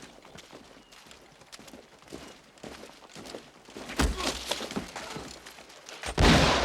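Soft hoofbeats and footsteps of a horse party, then a sharp crack about four seconds in and a loud musket shot near the end.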